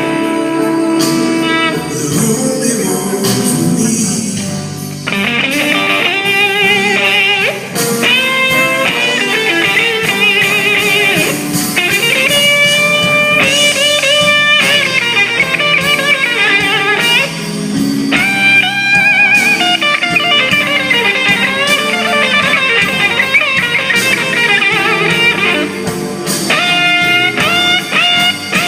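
Blues played on electric guitar with a band behind it, the lead line full of bent notes and wide vibrato.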